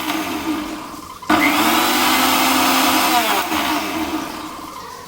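Mixer grinder's small jar blending an egg, lemon and sunflower-oil mix into mayonnaise in pulse mode. The motor runs, stops briefly about a second in, then starts again and runs steadily for about four seconds.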